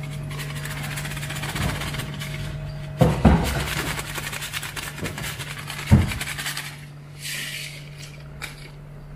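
Plastic seasoning packet rustling as it is shaken and squeezed over a frying pan of bolognese sauce, with two dull knocks about three and six seconds in. A steady low hum sits under it throughout.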